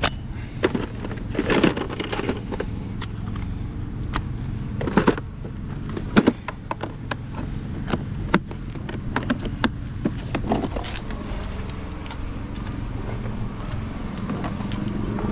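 A vehicle engine idling steadily, with scattered clicks and knocks, the loudest about a second and a half in, around five seconds in and just after six seconds in.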